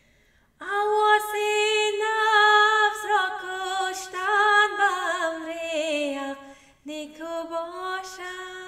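A woman singing an Ismaili devotional qasida with no instruments heard: one long held phrase with vibrato that slowly sinks in pitch, then after a short break a second phrase begins.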